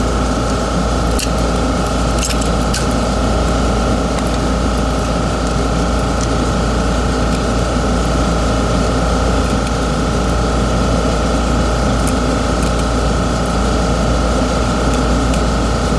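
A steady, loud mechanical hum with a low rumble and a few fixed tones, unchanging throughout. Over it, a few light clicks of a small screwdriver and plastic mouse parts being handled, mostly in the first few seconds.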